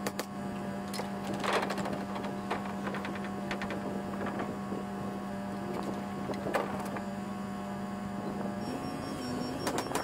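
A few sharp bangs of a pneumatic framing nailer driving nails into truss lumber, the strongest about a second and a half in and again past six seconds. Under them runs a steady, pitched machine hum that steps up in pitch near the end.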